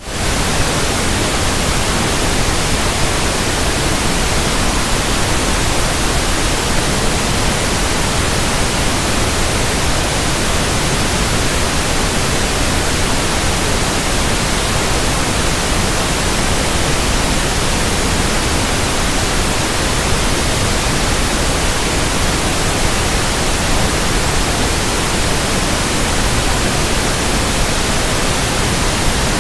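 Pink noise test signal for running in new speakers: a steady, even hiss spread across all pitches, cutting in suddenly at the start and holding at a constant level.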